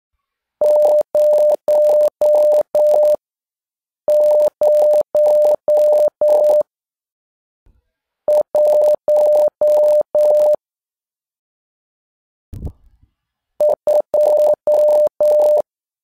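Morse code beeps on one steady pitch spelling out digits: zero as five dashes, sent twice, then one as a dot and four dashes, then two as two dots and three dashes. A short low thump comes just before the last group.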